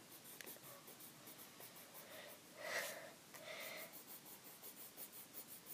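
Faint scratching of a coloured pencil being worked back and forth over coloring-book paper, with a soft breath a little before the three-second mark.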